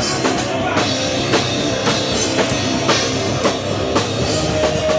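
Hardcore band playing live, its drum kit hitting about twice a second with cymbals ringing over the rest of the band.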